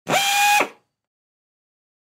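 Pneumatic air screwdriver run in one short burst: it spins up quickly, holds a steady whine over hissing air for about half a second, then winds down and stops.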